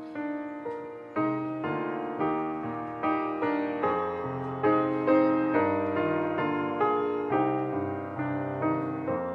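Piano playing slow chords, each struck sharply and fading away, with a new strike about every half second.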